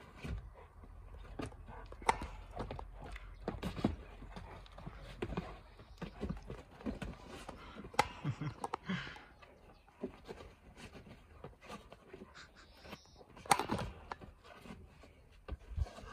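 A Great Dane and a Saint Bernard play-wrestling: irregular scuffling of paws and bodies on mats and turf, with many scattered knocks and thumps and a few short vocal sounds from the dogs. The loudest knock comes late on.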